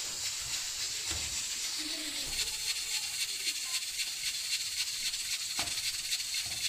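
Steady high hiss of steam escaping from a pressure cooker on the stove, with a couple of soft knocks.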